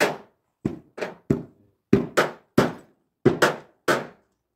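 Repeated hard knocks, about ten in quick uneven succession, sometimes in pairs, each dying away quickly: a hand tool striking something solid.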